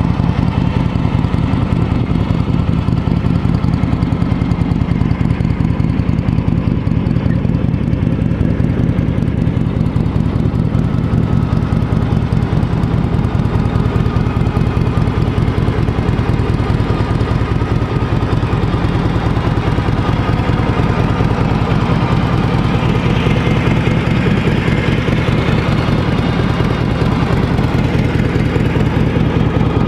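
Harley-Davidson FLH Electra Glide's V-twin engine idling steadily.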